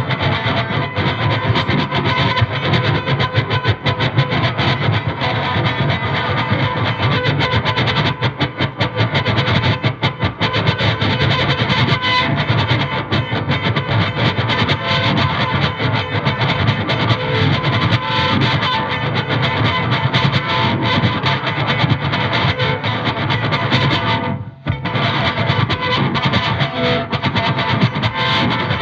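Electric guitar played through a single pedal and an amp as improvised noise music: a dense, distorted, unbroken wall of fast picked noise, with one brief break late on before it carries on.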